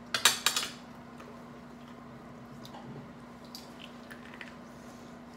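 Eating at the table: a short run of loud crunching snaps in the first half-second, then quieter chewing with faint scattered clicks, over a steady low hum.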